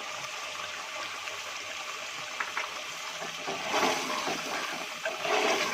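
Chicken karahi sizzling as it fries in the pan, a steady hiss that swells louder twice, about four seconds in and again near the end.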